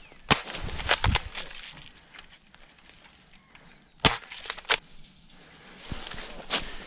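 A handful of sharp, irregularly spaced snaps, the loudest about four seconds in, with quieter stretches between them.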